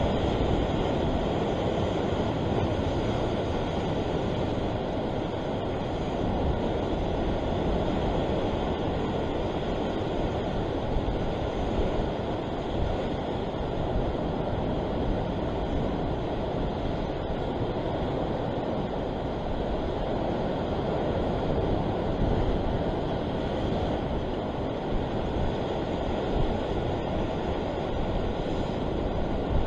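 A steady rush of wind buffeting the microphone, mixed with surf washing over the rocks, rising and falling a little without any distinct events.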